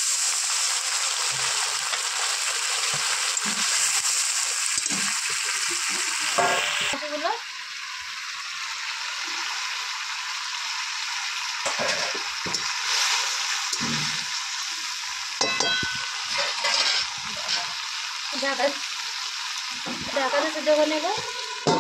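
Water poured into a hot metal kadai of fried potato, tomato and onion, sizzling and hissing loudly. About seven seconds in it drops abruptly to a softer steady hiss of the curry cooking, with scattered knocks and scrapes of a metal spatula against the pan as fried prawns are added and stirred.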